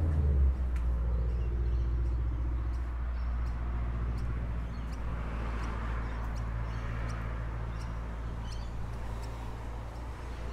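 Steady low rumble that fades slowly, with scattered faint bird chirps.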